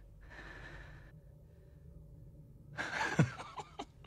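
A man breathing heavily, with one long breathy exhale in the first second, over a steady low hum. About three seconds in comes a short, loud vocal gasp that falls sharply in pitch, followed by a few fainter breaths.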